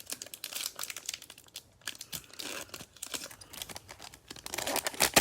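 A trading card pack's wrapper being torn open and crinkled in the hands, in quick crackling bursts that peak near the end.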